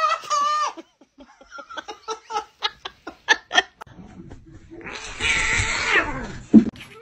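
A cat's wavering meow, then a run of short bursts of laughter, then a rough cat cry that falls in pitch.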